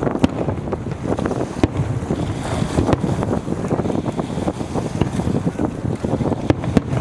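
Strong wind buffeting the microphone: a continuous rough low rumble with scattered sharp cracks.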